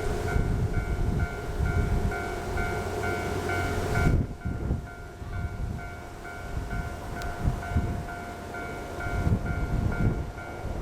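Level-crossing warning bell ringing in a regular pulse about twice a second while a train runs past with an uneven low rumble. The bell fades under the train about four seconds in and comes back near the end.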